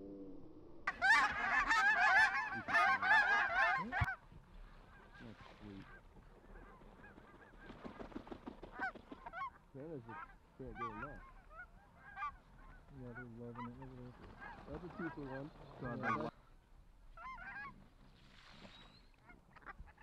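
A flock of geese calling: a dense burst of overlapping honks and cackles for about three seconds, then scattered single honks, some higher and some lower-pitched.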